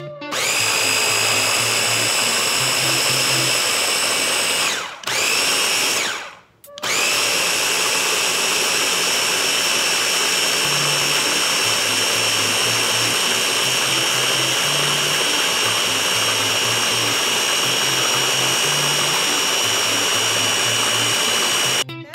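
Ninja blender motor crushing frozen mango, juice and sugar into a slush. It spins up with a rising whine, stops twice briefly and restarts in the first seven seconds, then runs steadily until it cuts off near the end.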